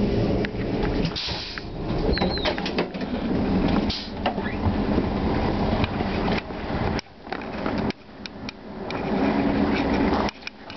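Rumble of a passenger train heard from inside the carriage by the door, with scattered clicks and knocks. It drops away suddenly about seven seconds in, swells again, and cuts off shortly before the end.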